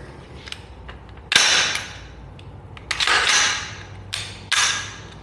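Diamondback DB15 AR-15 rifle being handled: four sharp metallic clacks, each dying away within half a second, with a few faint clicks between.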